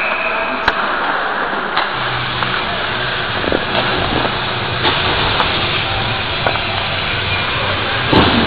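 Ice hockey play heard through a camera taped to a goalie's helmet: a steady rushing noise with scattered clicks and knocks of skates, sticks and puck. A low hum comes in about two seconds in, and a sharper knock sounds near the end.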